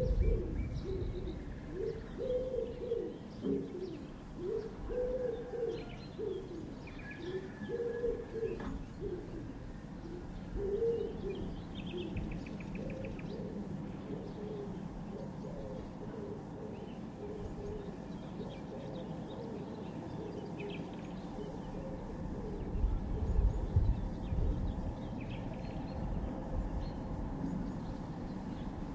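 A nature-sounds recording played back on a Unitra Uwertura M1417S reel-to-reel tape recorder. Low cooing bird calls repeat over the first dozen seconds and then fade, with higher chirps from small birds throughout. A brief low rumble comes about three quarters of the way through.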